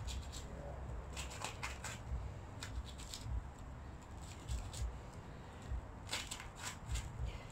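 Red deer hide being pulled and peeled off the leg by hand: short, irregular tearing rasps as the skin parts from the carcass, several in a row near the end.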